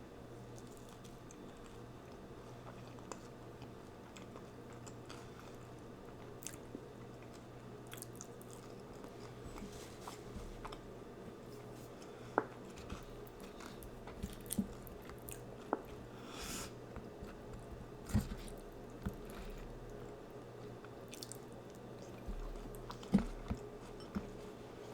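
A person chewing and biting food with wet mouth noises and occasional sharp crunches and clicks, over a faint steady hum.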